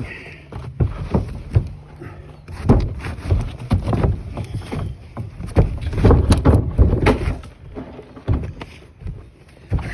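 Heavy cedar log being wrestled and shifted into place: a string of irregular thumps and knocks with scraping in between, busiest in the middle.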